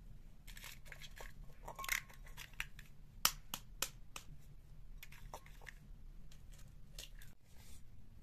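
Eggs being cracked on the rim of a stainless-steel bowl: a few sharp taps a little past three seconds in, with the crackle of eggshells being pulled apart.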